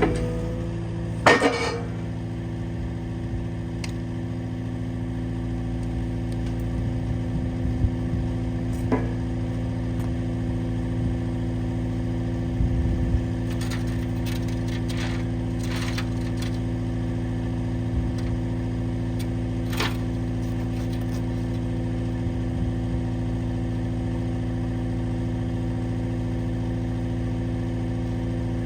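An engine running steadily at one constant speed, with a few light clicks and knocks here and there.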